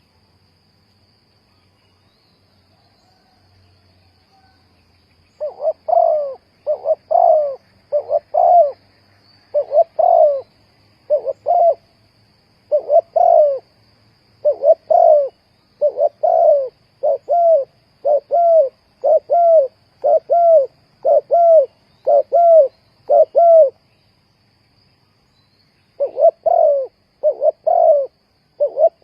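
Spotted dove cooing: a long run of short, repeated coo notes starting about five seconds in, a pause of about two seconds, then more coos near the end. A cricket trills faintly and steadily throughout.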